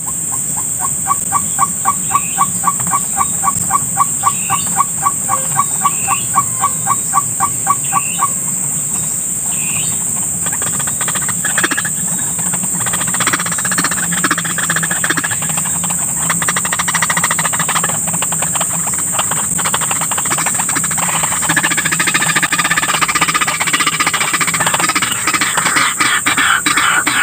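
White-breasted waterhen calling: a rapid, even series of short calls, about four or five a second, for the first eight seconds, over a steady high insect drone. After that, scattered clicks and rustling.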